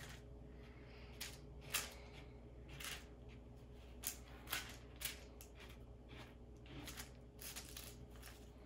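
Spatula scraping and smearing ointment across a paper-covered ointment slab in short, irregular strokes, some sharper than others. This is the mixing of nitroglycerin into the ointment base until it is evenly incorporated.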